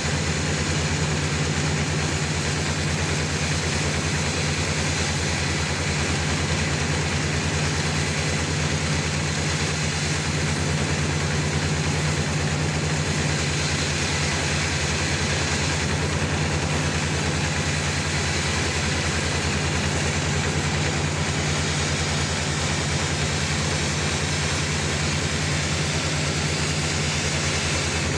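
Sawmill machinery running steadily, a constant low drone with no change in pitch or level.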